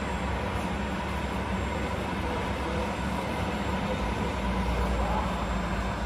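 RC truck driving slowly while towing a loaded low-loader trailer: a steady, unbroken running sound from its drive with no change in pace.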